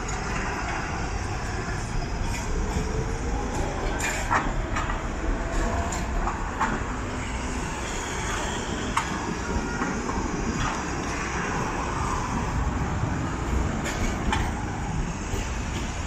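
Tatra KT4 trams running over a tram junction: a steady rumble of wheels on rail, with several irregular sharp clicks and knocks as the wheels cross the rail joints and switches.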